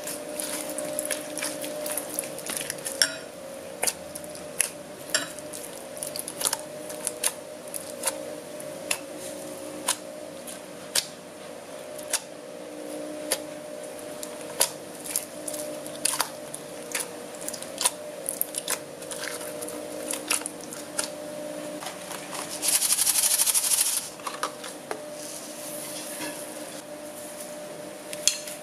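Hands kneading slime packed with small foam beads (floam) in a glass bowl: irregular sharp clicks and crackles as the beads squeeze and fingers knock the glass, over a steady low hum. Late on, a short hissing burst lasting about a second.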